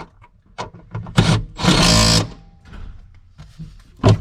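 Cordless power driver running briefly, first a short burst and then a longer run of about half a second, as the seat bolts are driven back in. Scattered clicks and knocks from handling tools and parts come before and after.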